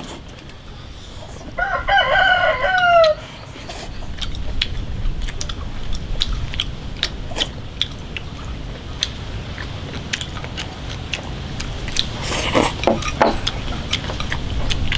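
A rooster crows once, a pitched call starting about a second and a half in, lasting about a second and a half and falling in pitch at the end. Small sharp clicks of chopsticks and bowls run throughout.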